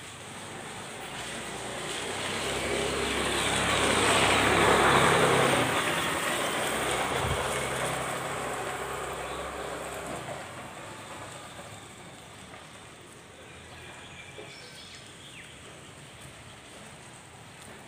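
A motor vehicle passing close by: its engine and tyre noise grow to a peak about five seconds in, then fade away by about twelve seconds, leaving a low street background.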